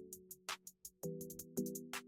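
Background music: chords on a pitched instrument struck about twice a second over a steady beat of crisp high ticks.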